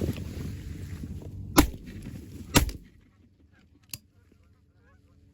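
Two shots from an over-and-under 12-gauge shotgun, about a second apart, one from each barrel, over a flock of geese honking; the honking dies away just after the second shot, and a faint click follows about a second later.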